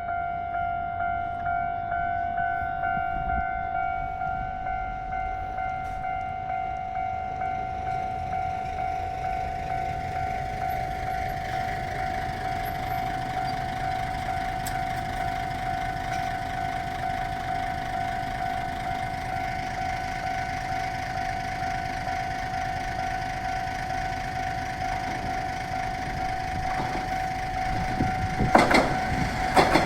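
Japanese level-crossing warning bell ringing, an even electronic ding repeating about twice a second, signalling an approaching train. Near the end, a train's wheels start clattering over the crossing.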